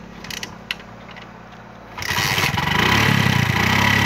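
A few light mechanical clicks, then about halfway through a Hero Honda motorcycle's single-cylinder four-stroke engine starts and keeps running loudly.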